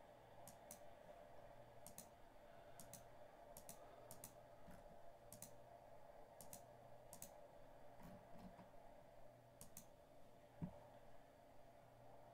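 Faint clicks coming in quick pairs, roughly one pair a second, over a low steady hum, with one soft thump near the end.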